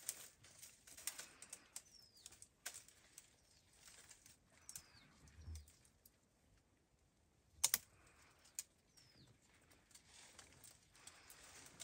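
Faint, irregular clicks and ticks from gorillas grooming each other at close range, with a sharper click just before eight seconds and a soft low thud about five and a half seconds in. A few short falling chirps from small birds sound in the background.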